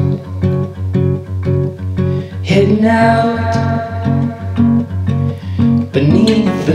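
Background music: a song with plucked guitar over a steady beat, with a singing voice coming in at moments.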